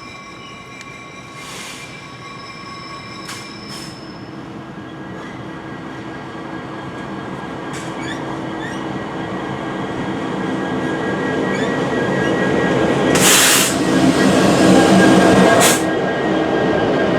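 CN local freight train rolling slowly past, its wheels squealing with several thin steady high tones in the first few seconds. The rolling rumble grows steadily louder as the train comes closer, with two short noisy bursts near the end.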